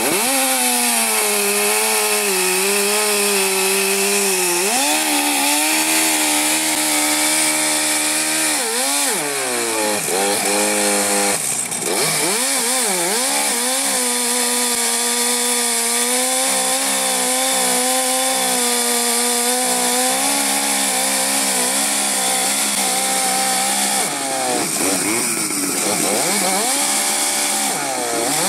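Vintage two-stroke chainsaw running at high revs while cutting through a thick log. The engine note sags and picks up again several times as the chain bites into the wood and eases off.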